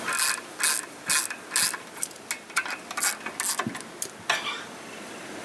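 Hand ratchet wrench being worked back and forth, about ten quick rattling clicks at roughly two a second, stopping after about four seconds.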